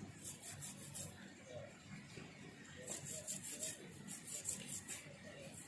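Quick rasping strokes, about four a second, in two runs: hand scraping or rubbing work on a part.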